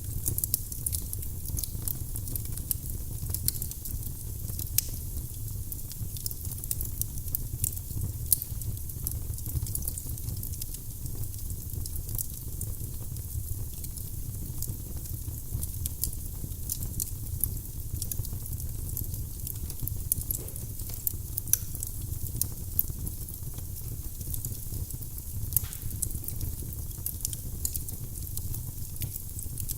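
Firewood burning in a fireplace, crackling with frequent small, irregular pops over a low steady rumble.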